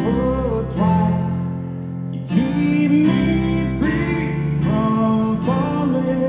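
Live rock band playing a slow guitar-led song in an arena, with melodic notes that slide between pitches about once a second over a steady low bass.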